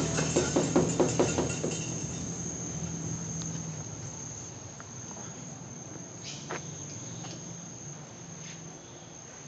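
Insects droning with a steady high-pitched tone, over a low hum that fades away. A quick run of sharp knocks in the first second and a half is the loudest thing, with a few faint clicks later.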